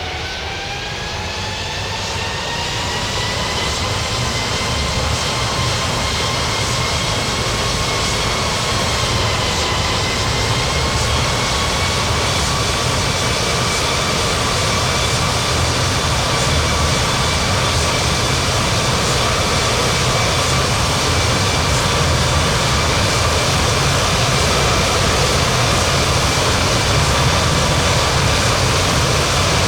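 Airbus A330-300 jet engines spooling up for takeoff: a whine that rises in pitch over the first few seconds, then holds as a steady high whine over a low rumble and rush, slowly getting louder.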